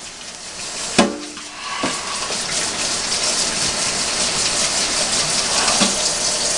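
Water running steadily from a tap, starting about two seconds in, after a brief knock about a second in.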